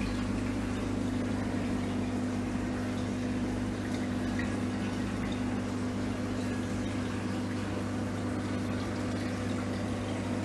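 Reef aquarium pumps running with a steady low hum, with water circulating in the tank system.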